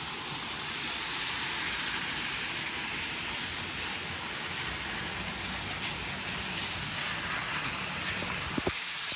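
Model train running on its track: a steady rumble under a constant hiss, with one short squeak near the end.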